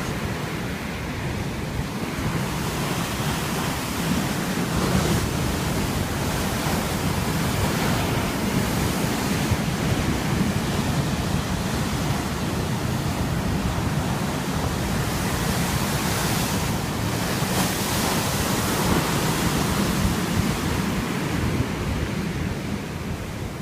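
Sea waves breaking and washing on the shore, swelling and easing in slow surges, with some wind on the microphone.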